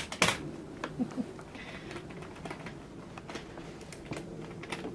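Light clicking: a quick run of sharp clicks at the start, then scattered, fainter clicks and taps over a low steady background.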